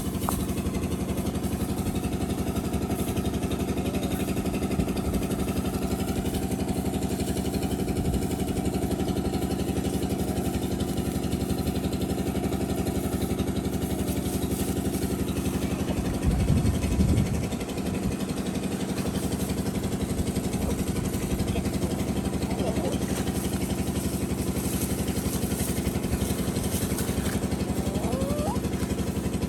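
A small engine running steadily at idle, with a louder low rumble lasting about a second just past the middle.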